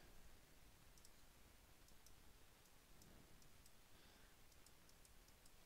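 Near silence: faint room tone with scattered faint clicks from a computer pointing device.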